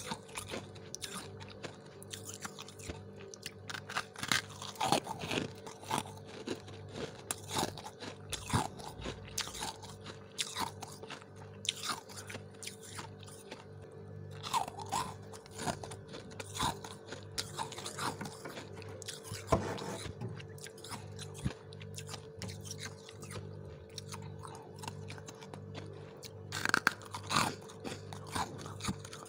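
Close-up crunching and chewing of small chunks of freezer frost, an irregular run of crisp bites and crunches several times a second, over a steady low hum.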